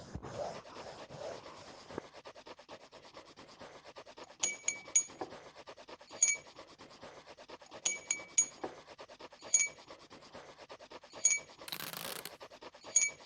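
Pencil scratching across paper in quick back-and-forth shading strokes. Short high clinks come in small groups every second or two, and a brief hiss sounds twice near the end.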